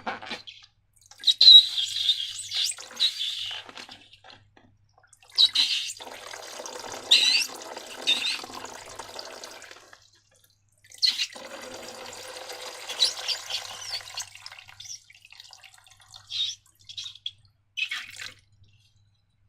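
Wet, sticky slime squelching and glugging as it is squeezed out and poured, in three spells of a few seconds each, followed by a few short clicks near the end.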